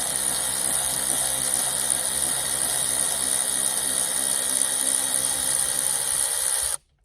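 Battery-powered cordless ratchet motor running steadily, spinning out an exhaust bolt on a chainsaw, then stopping suddenly near the end.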